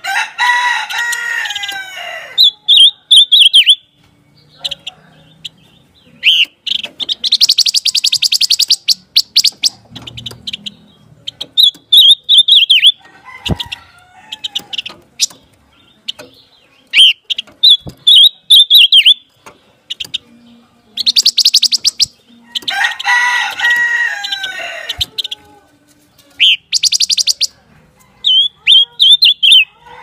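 Silver-eared mesia calling: repeated short, clear whistled phrases alternating with fast rattling trills. Near the start and again about 23 seconds in comes a harsher, lower call of about two seconds.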